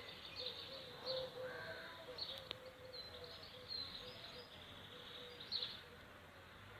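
Faint steady buzzing of a honeybee swarm, its hum wavering slightly in pitch, with short bird chirps over it.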